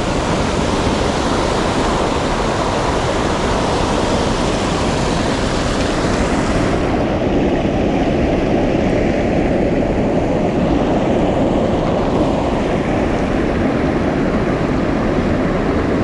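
Fast mountain stream rushing over rocks, a loud, steady rush of water. About seven seconds in it turns duller as the high hiss drops away.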